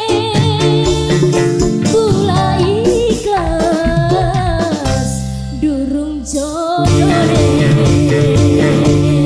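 Tarling dangdut music played loud: a woman singing a winding melody over electric guitar, keyboard and a steady drum beat.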